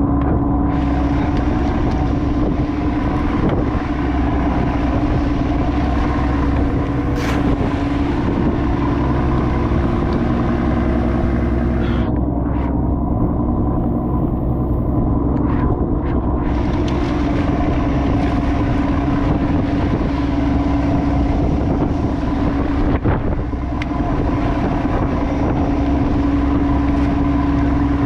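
Crab fishing boat's engine running with a steady hum, under a rushing haze of wind and water noise that briefly dies away about halfway through.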